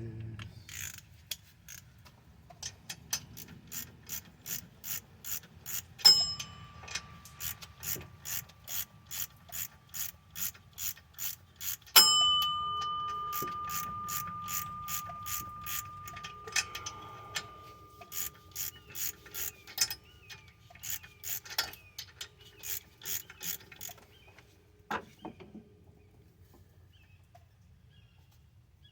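Ratchet wrench clicking steadily, about two to three clicks a second, as bolts are worked loose. Two loud metal clanks about a third and a half of the way through, the second ringing on for several seconds. The clicking stops a few seconds before the end, after a couple of last knocks.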